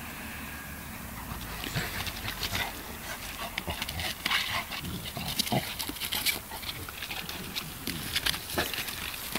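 A Bernese Mountain Dog and a 12-week-old American Bulldog puppy play-fighting: irregular short dog noises and scuffling, picking up about a second and a half in.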